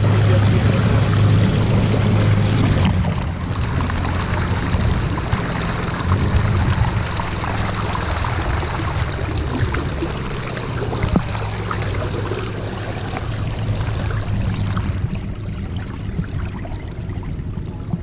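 Motorboat running, with water rushing and splashing along the hull over a steady low engine hum. The hum is loudest for the first few seconds and then drops, and the rush of water eases about fifteen seconds in.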